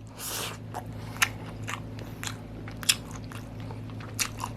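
A person chewing a mouthful of food close to the microphone: wet mouth clicks and small crunches at irregular intervals, a few of them sharper than the rest.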